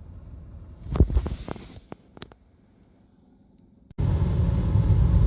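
A loud cluster of knocks and rustling about a second in, then two sharp clicks, a short quiet stretch, and an abrupt switch near the end to steady car road noise and engine rumble heard from inside the cabin.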